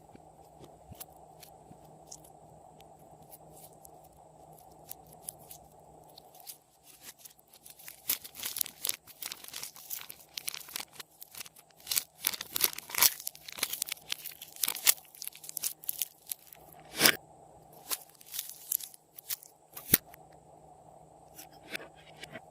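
Slime being squeezed and stretched by hand, making crunchy crackles and pops. It is sparse and faint at first, then a dense run of crackling starts about eight seconds in and lasts until about twenty seconds, with a couple of sharper pops near the end.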